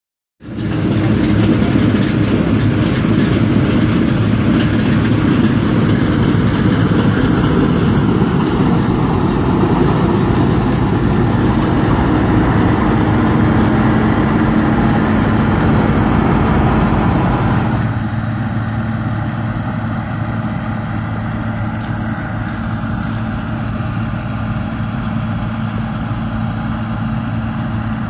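Combine harvester running while cutting and threshing wheat: a steady engine drone with a constant hiss over it. About two-thirds of the way through the sound drops and turns duller, as if heard from farther off.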